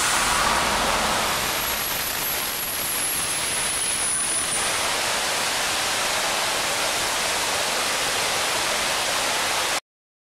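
Large indoor fountain's water rushing and splashing steadily as a curtain of water falls into the basin. It cuts off suddenly near the end.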